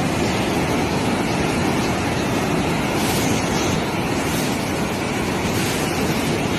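Rushing floodwater: a steady, even rushing noise with no clear rhythm or tone.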